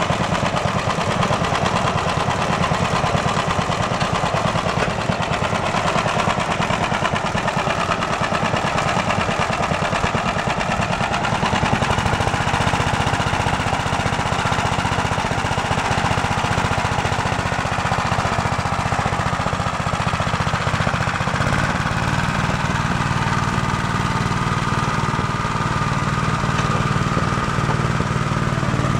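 Small engine of a two-wheel walk-behind tractor with a sulky seat and front rotary mower deck, running steadily as the machine is ridden off across the grass.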